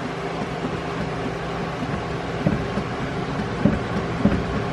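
Steady mechanical hum with a few held tones, like a running fan, with a few dull low knocks from about halfway in.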